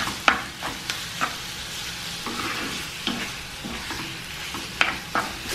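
Pieces of chicken escalope and onion frying in oil in a pan, sizzling steadily as they are stirred. A few light knocks of the stirring utensil against the pan sound through it.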